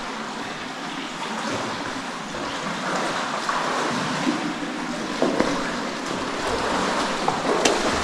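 Steady rush and slosh of water in an underground cave river as cavers wade through a pool, with a few faint light splashes near the end.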